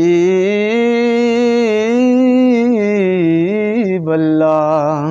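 A man singing a naat unaccompanied, drawing out one long held note. The pitch rises about a second in, sways gently, then dips with a brief waver near the end.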